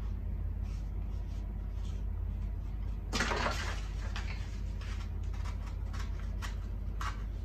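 A knife cutting through cardboard: a longer scraping cut about three seconds in, then a run of short scratchy cutting strokes. Before it, faint scratches of a pen drawing on the cardboard.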